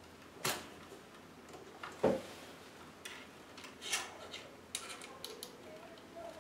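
Hard clicks and knocks of a small LED video light panel being handled and fitted onto its mount on a microphone-stand arm: a sharp click about half a second in, the loudest knock with a dull thud about two seconds in, another near four seconds, then a quick run of small clicks near five seconds.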